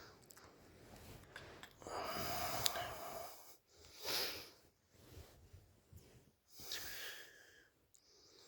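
A woman snoring and breathing heavily in her sleep. There is a long snoring breath about two seconds in, a shorter, louder one about four seconds in, and another near seven seconds.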